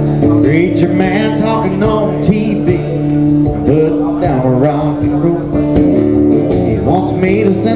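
A man singing a country song live, accompanying himself on a strummed acoustic-electric guitar, both amplified through a PA.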